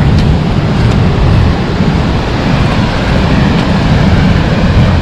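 Young River Falls pouring down at close range: a loud, steady rush of falling water with a heavy low rumble, the spray drenching the spot where the microphone stands.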